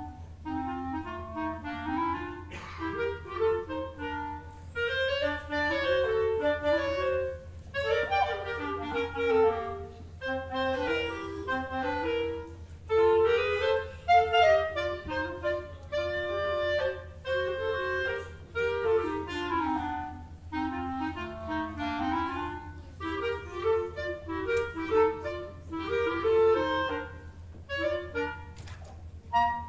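Clarinet duet: two clarinets play interweaving melodic lines, one lower and one higher, and the piece ends near the close.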